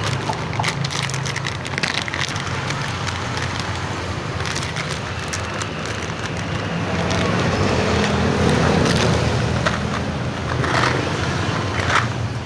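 Busy background noise, a steady rumble like passing traffic, with many scattered clicks and clatters; it grows louder for a few seconds in the middle.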